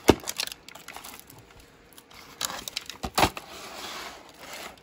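Plastic clamshell VHS case being handled and opened: a sharp double click at the start, two more clicks of the plastic about two and a half and three seconds in, with rustling between them.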